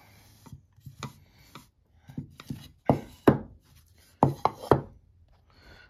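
Turned black locust bowls knocking and clattering as they are handled, turned over and set down on a bench: a string of sharp wooden knocks, loudest about three seconds in and in a quick cluster of three just after four seconds.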